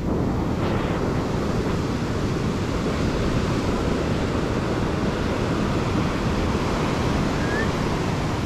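Ocean surf washing steadily on the beach, with wind buffeting the microphone.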